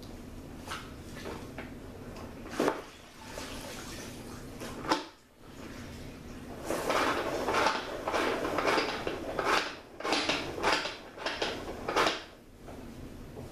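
Mop scrubbing back and forth across a tile floor in a run of rough strokes, roughly two a second, through the second half. Two sharp knocks come earlier, a little under 3 seconds and about 5 seconds in.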